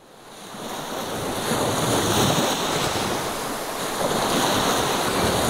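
Ocean surf breaking and washing up a beach, a steady rush of waves that fades in over the first second and swells and eases in slow surges.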